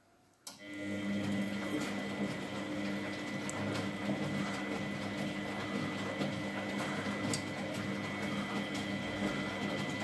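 Miele front-loading washing machine's motor turning the drum through a wash rotation, with laundry tumbling inside. It starts with a click about half a second in, then runs steadily with a low hum and a thin high whine.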